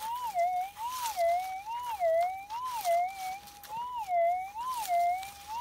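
Minelab GPX 6000 metal detector's steady threshold tone warbling, rising and then dipping in pitch about every three-quarters of a second as the coil is swept back and forth. This is the detector's target signal over a small buried target.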